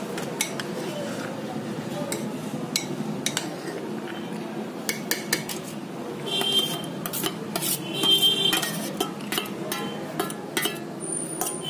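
Steel spoon stirring and scraping chopped onion, tomato and sprouts in a bowl, with irregular taps and a few ringing clinks of metal against the bowl.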